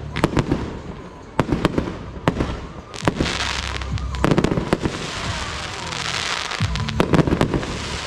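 Aerial fireworks display: a series of sharp bangs from bursting shells, joined from about three seconds in by a dense, continuous crackling of crackle or glitter effects.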